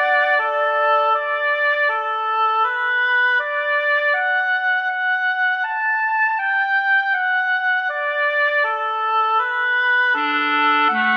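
A computer-rendered woodwind quartet, generated in MuseScore, playing a slow piece of held notes in several parts. Lower parts come in near the end.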